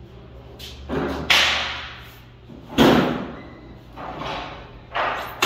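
A series of loud bangs and thuds, the two loudest about a second and a half apart, each sharp at the start and trailing off with a lingering echo.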